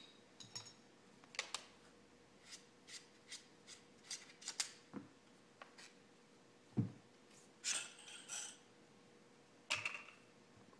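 Short clicks, clacks and scrapes of the STG U9's metal and polymer parts being handled and pulled apart during disassembly. Several clacks carry a brief metallic ring, with a busier clatter a little past two-thirds through and another sharp clack near the end as the coil recoil spring comes off the bolt.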